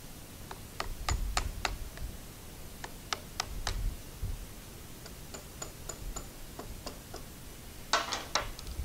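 Light metallic clicks and taps in small, irregular clusters: pliers working a cotter pin on a hydraulic floor jack. A short, louder scrape comes near the end.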